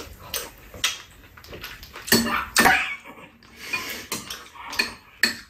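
Metal spoons clinking and scraping against ceramic bowls and a metal tray during a meal: a string of short clinks, with a louder burst of noise about two seconds in.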